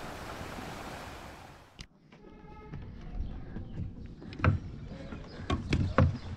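A hiss that cuts off just under two seconds in, then a short squeak and a run of irregular knocks and thumps of someone climbing a weathered wooden ladder propped against a wooden boat's hull.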